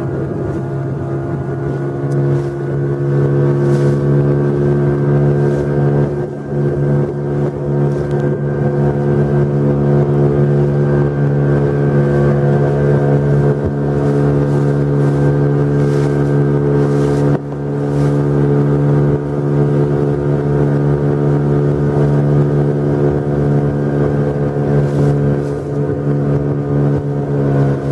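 Boat engine running steadily at constant speed, a loud low hum that holds one pitch, dipping briefly twice.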